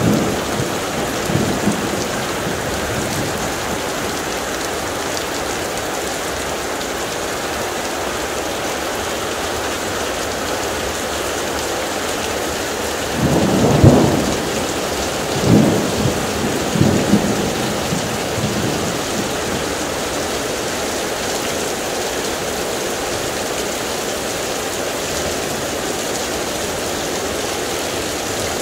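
Heavy thunderstorm rain pouring steadily. Thunder rumbles briefly at the start, then a louder clap about halfway through rolls on in several peaks for about four seconds.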